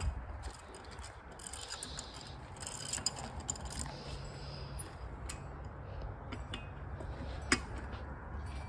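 Hand tools and loose parts clicking and rattling irregularly during reassembly under a car's steering column, with one sharper click near the end, over a steady low hum.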